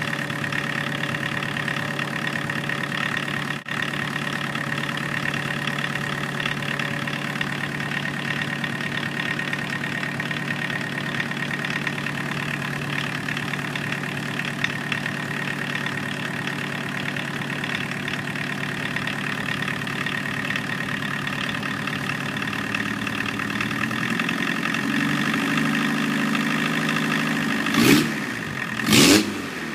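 A 1984 Volkswagen Jetta 1.6-litre naturally aspirated diesel engine, run out of the car on an engine stand, idling steadily. About 23 seconds in the idle rises to a faster steady speed, and near the end it is revved sharply twice.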